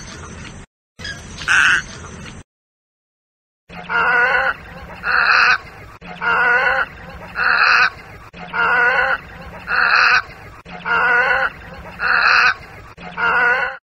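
A bird calling over and over, rough calls about once a second, starting again after a short silent gap a few seconds in.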